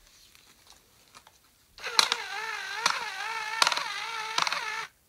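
Small electric motor of a wooden model elevator running with a wavering whine, starting about two seconds in and stopping just before the end, with a sharp click roughly every 0.8 s; the model's gears are kind of broken.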